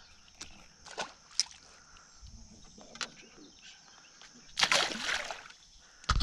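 Light clicks and handling noises as a bass is unhooked, then a splash and slosh of water about four and a half seconds in as the fish is released over the side of the boat. A heavy low thump near the end.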